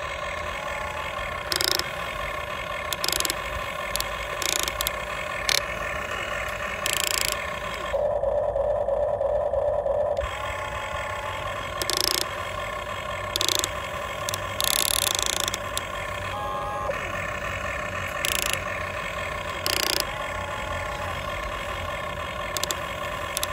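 Huina radio-controlled excavator's small electric gear motors whining steadily as the boom and bucket dig, with short sharp clicks every second or two. A louder, lower motor hum runs for about two seconds near the middle.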